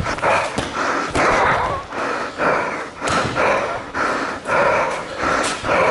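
A sparring fighter's heavy, rapid breathing close to the microphone, about two huffing breaths a second in a steady rhythm.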